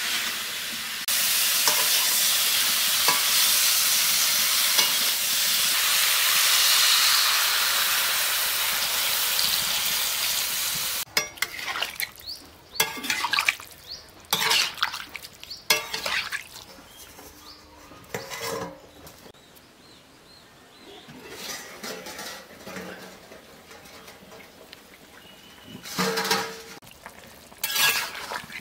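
Cauliflower and potatoes sizzling loudly in hot oil in a steel kadai, the sizzle growing louder about a second in. Partway through it gives way to a wooden spatula stirring the curry, with scattered scrapes and knocks against the pan over a quieter simmer.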